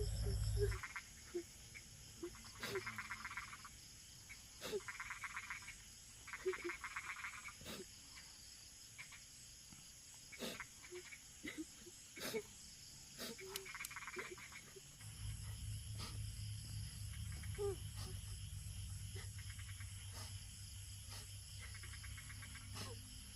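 Frogs calling: a series of pulsed trills about a second long, repeated at intervals, with scattered faint clicks. A low steady hum comes in about two thirds of the way through.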